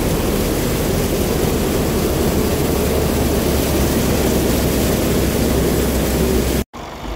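Wheat threshing machine running with a steady, loud mechanical din and a constant low hum underneath. Near the end it cuts off abruptly, and a quieter engine sound takes over.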